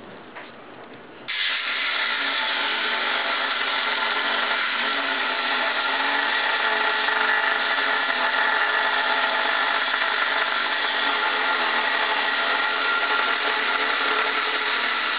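Electric angle grinder with a cut-off disc, cutting through the aluminium tube of a Honda CRF450 motorcycle frame. It starts suddenly about a second in and runs steadily at an even pitch through the cut.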